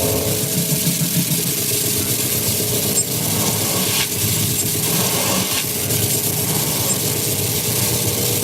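Live noise-music improvisation: a steady low rumbling drone under a dense wash of hiss, with a couple of brief clicks.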